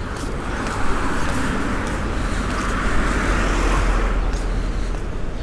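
A car passing on the street, its tyre and engine noise swelling to a peak about three to four seconds in and then fading, over a steady low rumble.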